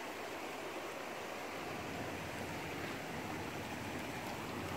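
Steady, even rushing noise of lake water at a rocky shore, with no distinct splashes.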